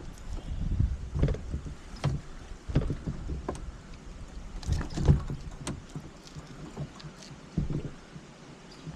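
Irregular knocks and thumps against a kayak's hull, with a few sharp clicks among them; the loudest thump comes about five seconds in.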